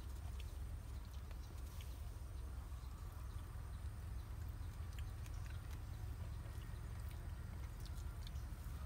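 Faint eating sounds: chewing and fingers picking fried fish off a plate, a few soft clicks and ticks, over a steady low hum.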